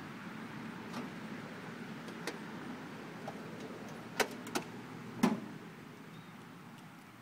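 Three sharp metallic clanks about four seconds in, the last the loudest, as a man climbs up onto a Ford 8N tractor, over a low steady rumble that eases off near the end.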